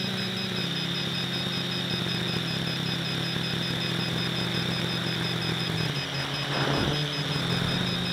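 Neewer quadcopter's electric motors and propellers humming steadily, with a high whine above the hum. About six seconds in the pitch drops and a short rush of noise comes through, then the hum climbs back up, as with a throttle change.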